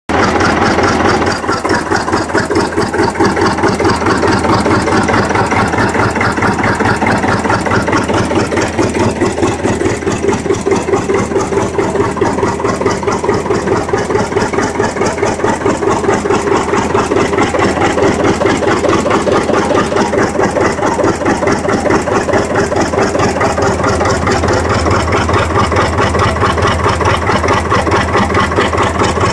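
1951 John Deere R's two-cylinder diesel engine running steadily with an even, rapid beat.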